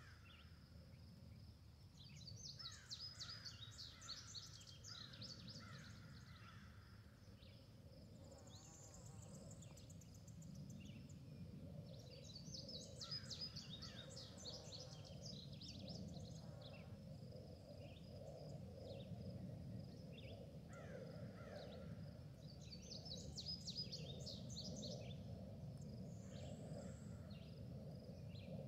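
Faint outdoor ambience: clusters of rapid, high bird chirps that come back about every ten seconds over a steady low hum.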